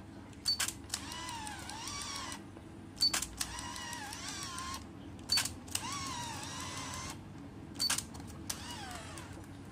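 Fujica Auto-7 compact film camera fired four times about two and a half seconds apart: each time a sharp click of the autofocus and shutter, then the built-in motor whirring for about a second and a half as it winds the film on.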